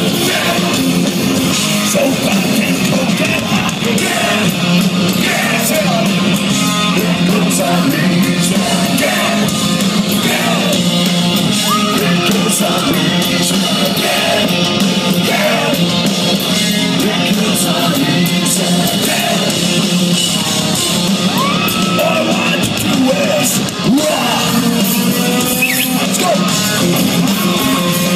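Gothic rock band playing live: distorted electric guitars, drums and a sung, half-shouted lead vocal, loud and dense, heard from within the crowd in a large club room.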